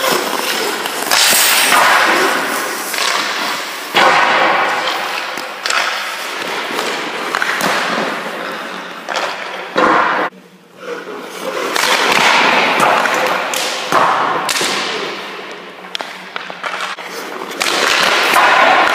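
Ice-hockey goalie skates scraping and carving the ice in repeated hard pushes and slides, with sharp thuds of pucks and gear striking.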